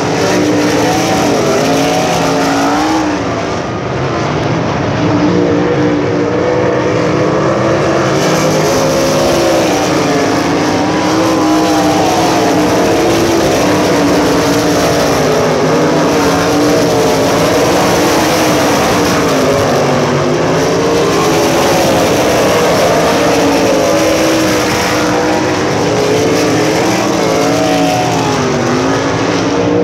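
USAC Silver Crown race car engines running on a dirt oval, their pitch rising and falling continuously as the cars accelerate and lift around the track.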